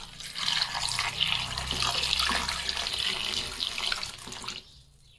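Water poured from a glass into a non-stick kadhai, splashing over four raw mangoes as the pan fills; the pouring tails off about four and a half seconds in.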